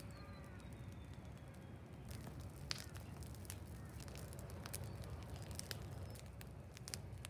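A teepee-stacked stick fire catching and burning, dry wood crackling and popping with sharp cracks scattered through, more of them from about two seconds in, over a low steady rumble.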